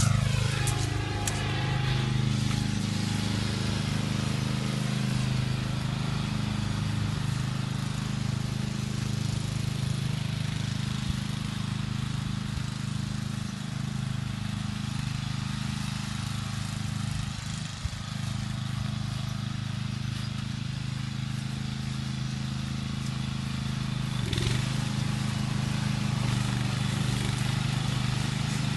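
Lawnmower engine running steadily at a constant speed.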